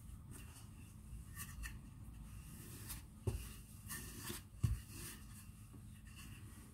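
Wooden rolling pin rolled back and forth over soft bread dough on a floured wooden board: quiet rubbing and scuffing strokes, with two soft knocks a little past the middle.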